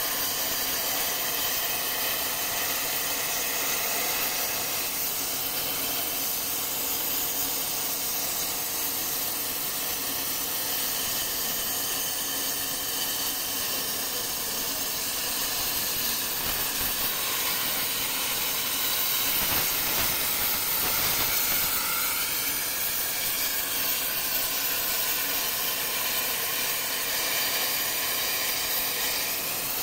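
Plasma torch of a CNC plasma pipe-cutting machine cutting through a metal pipe: a steady hiss of the plasma arc, growing a little louder about two-thirds of the way through.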